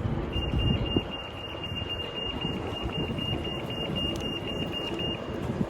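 Electronic warning beeper sounding a rapid series of high, even beeps, about four a second, for about five seconds over steady background rumble, with a bump about a second in.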